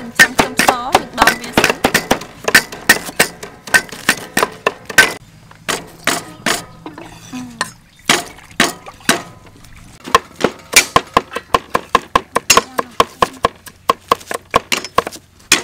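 Large kitchen knives chopping vegetables and meat on round wooden chopping blocks: a string of sharp knocks as the blades strike the wood. Partway through it settles into a quick, even run of about four to five chops a second.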